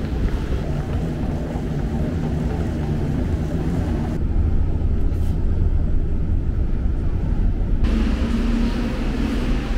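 Steady low rumble of a moving vehicle. About four seconds in, the higher part of the sound cuts out abruptly for several seconds, then comes back.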